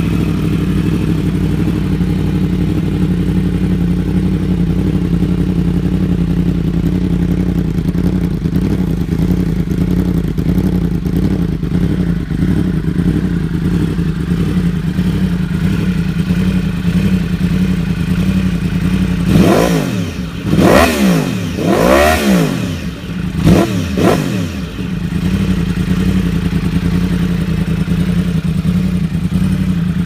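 Yamaha R1's crossplane inline-four, breathing through an Akrapovic exhaust, idling steadily. About two-thirds of the way in come several quick throttle blips, each rising and falling in pitch, before it settles back to idle.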